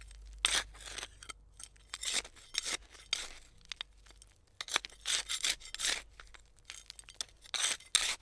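A hand trowel digging into soil: irregular gritty scrapes and crunches as the blade cuts in and lifts the earth, about a dozen strokes of differing length.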